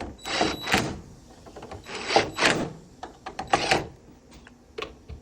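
Power screwdriver running in three short bursts, driving screws back into the dryer's panel, with small clicks of handling in between.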